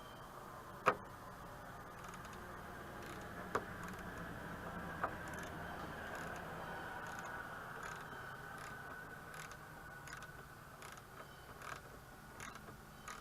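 Fender mounting hardware being worked into place by hand: three sharp clicks about a second, three and a half seconds and five seconds in, then lighter scattered ticks over a faint steady background.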